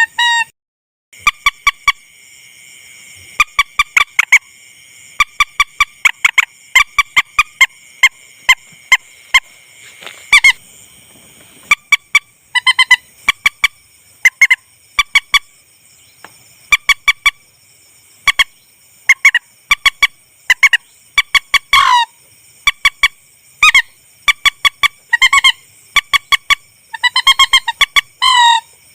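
Lure recording of rail (burung mandar) calls: groups of quick, nasal honking notes repeated every second or two, some groups ending in a falling note. A steady high-pitched background hum runs underneath from about a second in.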